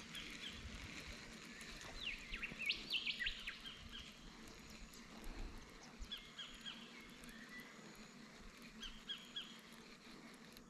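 Wild birds calling: a burst of several quick falling chirps about two seconds in, then short runs of rapid high notes that repeat a few times. Underneath is a faint steady low hum, which fits a beehive buzzing across the river.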